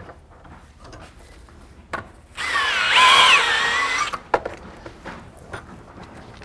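Cordless drill spinning a uniburr chamfering bit against the end of a 3/8-16 threaded-rod stud held in a vise, cutting a chamfer for a second or two; its motor whine rises and falls over the grinding of the bit. Light handling clicks come before and after.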